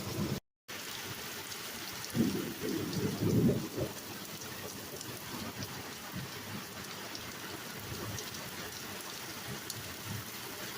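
Rain pouring down steadily, with the patter of drops, and a low rumble of thunder swelling about two seconds in and fading by about four seconds. The sound cuts out completely for a moment just before the first second.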